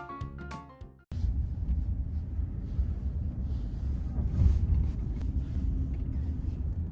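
Background music with plucked, bell-like notes fades out about a second in, then a sudden cut to a steady low rumble of background noise.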